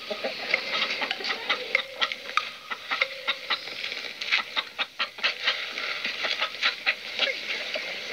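Chickens pecking and scratching at feed in straw: a rapid, irregular patter of small clicks and taps.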